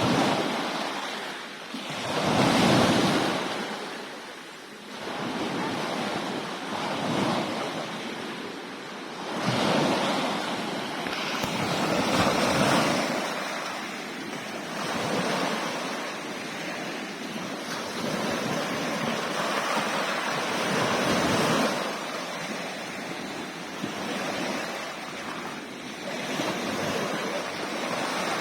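Sea waves surging in one after another, each swell rising and falling every few seconds, with wind buffeting the microphone.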